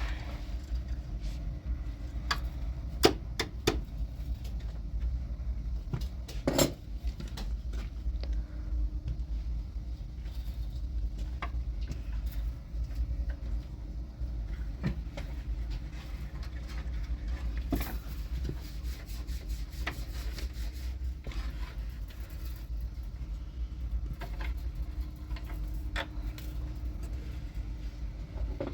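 Steady low wind rumble on the microphone, with scattered sharp knocks and clinks of hand work; the loudest knocks come about three and six and a half seconds in.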